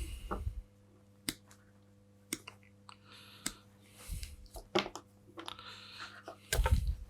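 Hands working at a soldering iron's cable joint: scattered small clicks and rustles about a second apart, with a few dull low knocks, the loudest near the end.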